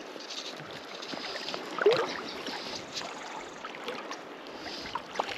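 River water flowing and lapping around a wading angler's legs, with small clicks and one brief louder sound about two seconds in.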